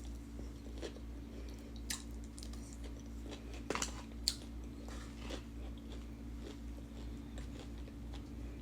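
A person chewing and biting into fried food, with scattered crisp crunches and two sharper bites about four seconds in, over a steady low hum.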